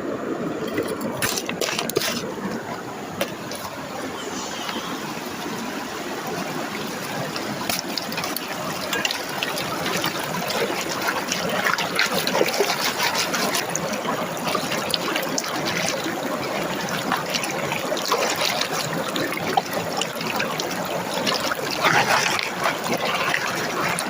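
Water trickling and splashing steadily, with many small clicks throughout.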